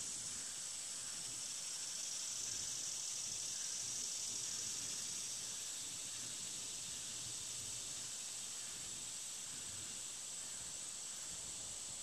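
Steady high-pitched drone of an insect chorus, unbroken and even in level.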